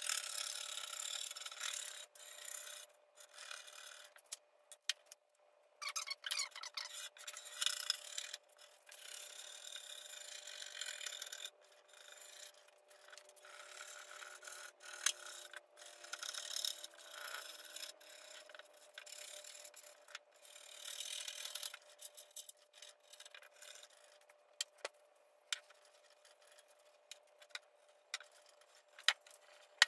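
Straight-edge razor blade scraping old gasket residue and dirt off the edge of a glass window pane, in irregular runs of strokes with short pauses. In the last third the scraping thins out to occasional strokes and a few sharp clicks.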